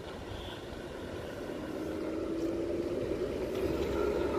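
Truck engine running steadily, growing louder as the truck approaches over the rutted mud road.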